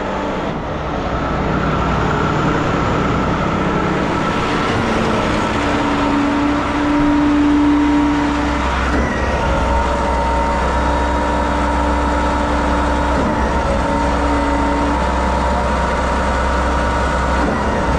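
Diesel engine of a Putzmeister 56Z concrete boom pump truck running steadily under load, driving the hydraulic concrete pump while it pumps concrete. Held whining tones come and go over the steady running sound.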